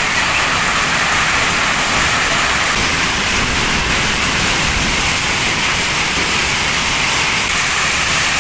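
Heavy hail falling: a loud, steady, dense hiss of hailstones striking paving, grass and walls.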